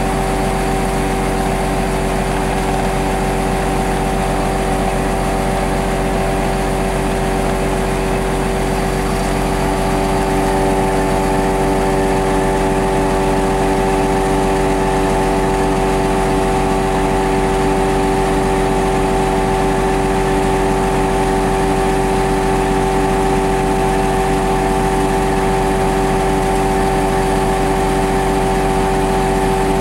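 Sisu E12 slurry pump-loader truck's Mack diesel engine running at a steady speed, a constant hum with fixed tones, rising slightly in level about ten seconds in.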